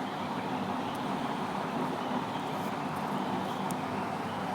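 Steady factory-floor background noise: a constant machine hum and hiss, with a few faint light clicks.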